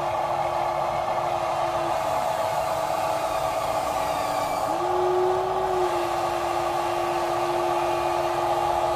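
Small electric gear motors of radio-controlled toy construction vehicles whining steadily. One motor's pitch drops about two seconds in and rises again about five seconds in, as the load or speed changes.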